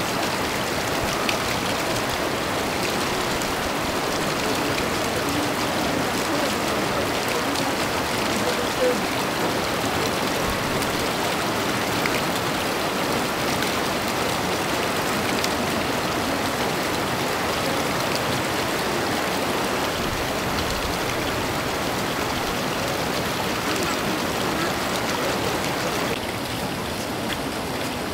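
Steady rush of running water with no rhythm or pitch. It drops a little in level and brightness near the end.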